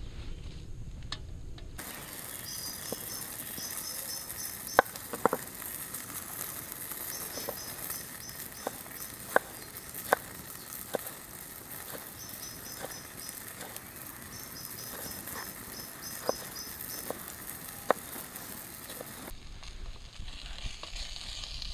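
Campfire crackling with scattered sharp pops. A bird sings quick phrases of four or five short high notes, repeated several times.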